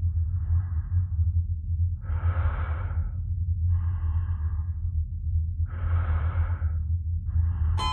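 Slow, heavy human breathing, one long breath in or out about every second and a half, the louder breaths alternating with softer ones, over a steady low hum.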